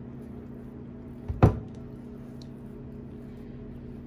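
A single loud, dull thump about a second and a half in, over a steady low hum, while no-bake chocolate cookie mixture is pressed down into a cake pan.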